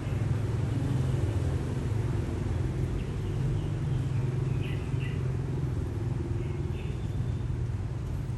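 Steady low outdoor rumble, with a few faint short high-pitched sounds about three to five seconds in and again near seven seconds.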